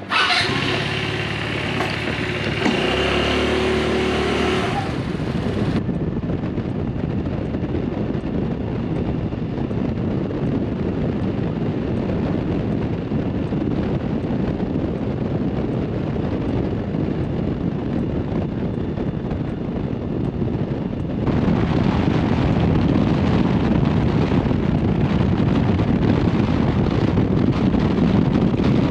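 125 cc scooter being ridden at road speed: engine drone under wind rushing over the microphone. The first six seconds hold a different, steadier sound with held tones that cuts off abruptly, and about twenty-one seconds in the rushing turns louder and fuller.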